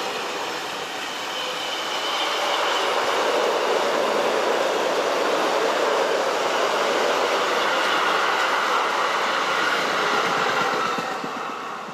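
Freight train of loaded flat wagons rolling past on the rails, giving a steady wheel-on-rail rumble. The sound fades away near the end as the last wagon goes by.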